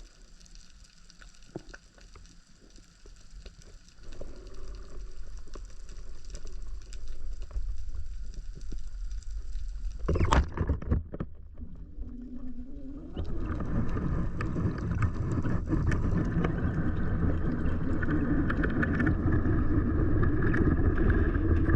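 Water rushing and sloshing around an action camera during a spearfishing dive: faint at first, louder from about four seconds in, with a sudden loud burst about ten seconds in, then a louder steady rush.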